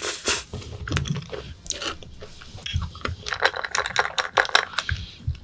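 Close-miked chewing of a spoonful of soft creamy dessert: a run of short, wet clicks and smacks from the mouth, busiest in the second half.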